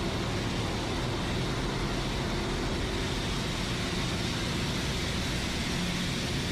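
Steady machinery noise of a tanker ship's engine room: a dense, even drone with a low hum underneath.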